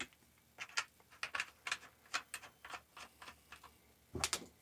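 Quiet, irregular small plastic clicks and ticks, several a second, as the connector caps come off a Ubiquiti UniFi AC Mesh access point and its antennas are handled for fitting, with one louder knock about four seconds in.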